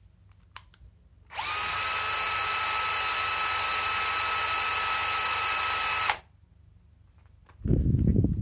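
Bosch GSR 12V-15 12 V cordless drill-driver running with no load at full trigger in second gear for about five seconds: a steady high whine that rises briefly in pitch as it spins up and stops abruptly. Near the end, a short loud low thump from handling the other drill.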